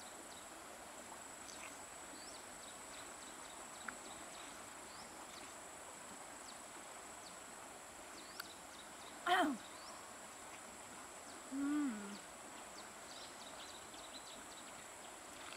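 Faint outdoor ambience: a steady high-pitched insect drone with scattered faint short chirps. Twice past the middle a brief voiced sound from a person stands out, the first gliding down in pitch, the second a short low hum.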